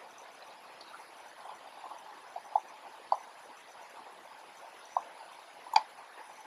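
A few faint, scattered small clicks of a precision screwdriver and fingertips working on the plastic and metal parts of a partly stripped Canon AF35M II film camera, over a light hiss; the sharpest click comes near the end.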